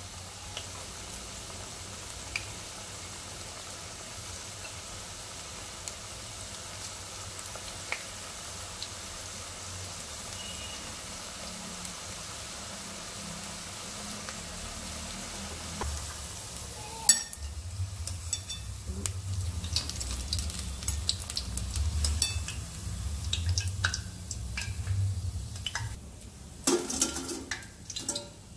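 Onion bhajiya deep-frying in hot oil in a steel kadai: a steady sizzle. Past the middle, a spoon stirs and turns them, with clinks and knocks against the steel pan and a few louder clicks near the end.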